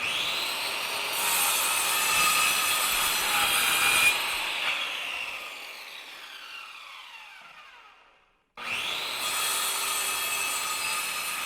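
Electric bandsaw running and cutting wood, then switched off about four seconds in, its motor and wheels coasting down with a falling pitch until it fades; near the end it is running again.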